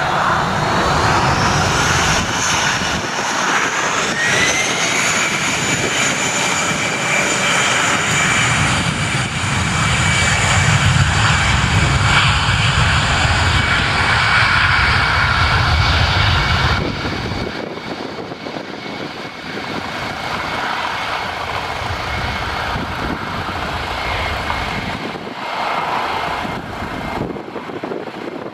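Airbus A319-111 jet airliner on its takeoff roll, its CFM56 turbofan engines at takeoff thrust: a high whine that rises in pitch over the first few seconds and then holds steady, over a low rumble. The sound falls away about two-thirds of the way through as the aircraft moves off down the runway.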